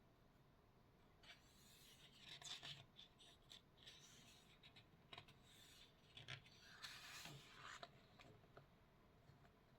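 Faint scratchy strokes of a drawing tool on paper during sketching, a run of short quick strokes from about a second in until near the end.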